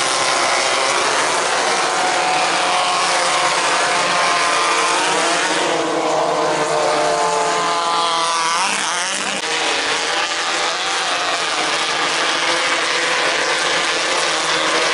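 Several 1600cc off-road race buggies running hard around a dirt track, their engines overlapping. About eight seconds in, one engine's pitch sweeps up and down as it revs.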